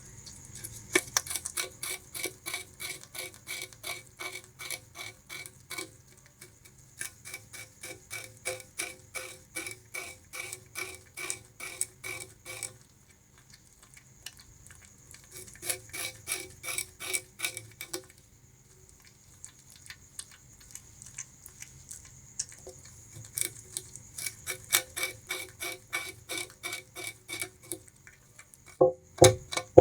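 Bamboo rat chewing sugarcane with its incisors: crisp crunches at about three to four a second, in runs broken by two pauses. There is a louder crunch near the end.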